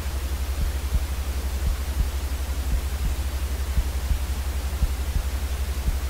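Steady white noise: an even hiss across the range over a heavier low rumble that flutters quickly.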